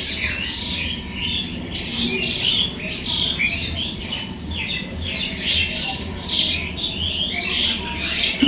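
Birds chirping, many short calls in quick succession overlapping one another.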